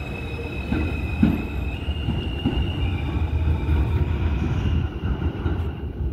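New York City Subway train moving through the station: a steady low rumble of wheels on rail, with a few clunks over the track joints and high whining tones that step up in pitch about two seconds in.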